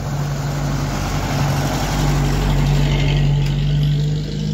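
Small box truck driving past close by, its engine running steadily, getting louder as it comes alongside and falling away near the end.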